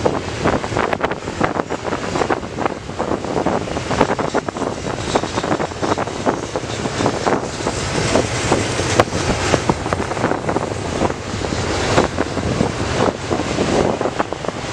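Double-stack intermodal container cars of a CN freight train rolling past: a steady roar of steel wheels on rail with frequent clicks and clanks, and wind buffeting the microphone.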